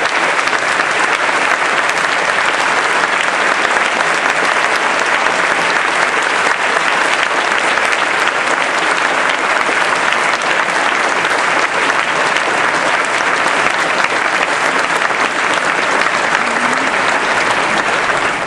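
A large audience applauding steadily with dense clapping, cut off sharply at the very end.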